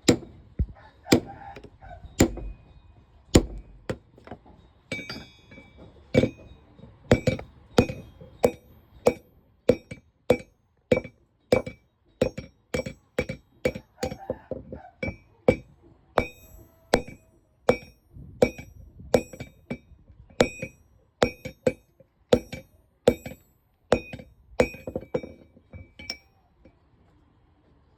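Blacksmith's hammer striking steel on an anvil while forging a crowbar, each blow giving a short metallic ring. The blows are spaced out at first, then settle into a steady beat of about two a second.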